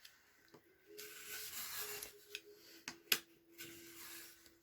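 Faint paper rubbing and rustling as freshly trimmed journal pages are handled, with a couple of sharp clicks about three seconds in.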